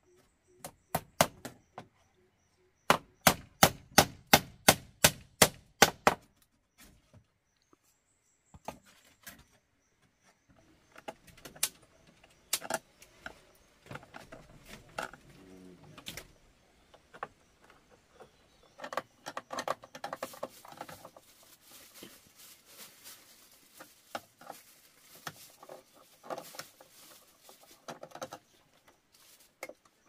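Hammer blows on a wooden board fixed to a bamboo post: three strikes about a second in, then a quick even run of about a dozen from three to six seconds in. After that come scattered softer clicks and rustling as electrical cable and the socket plate are handled.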